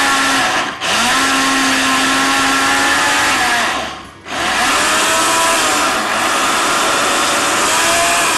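Small electric spice grinder running at full speed, grinding toasted spices and sesame seeds into a Sudanese dagga mix. The motor whine is cut twice, briefly about a second in and again about four seconds in, sagging in pitch before the cuts and picking straight back up each time.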